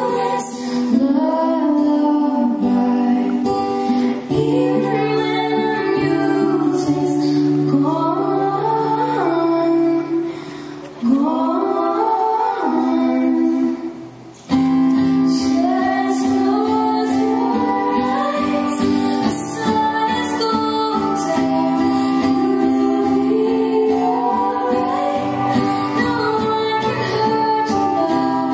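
Live acoustic performance: a woman singing lead with harmony voices over a strummed acoustic guitar. The music drops away briefly twice, about ten and fourteen seconds in.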